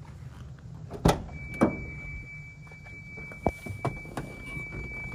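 Pickup truck door being opened, with two sharp clacks of the latch and door. About a second in, a steady high-pitched warning tone comes on and keeps sounding. Several lighter clicks and knocks follow as someone climbs into the cab.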